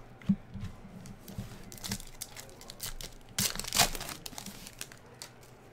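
A foil trading-card pack being torn open and its wrapper crinkled, with the loudest rip about three and a half seconds in.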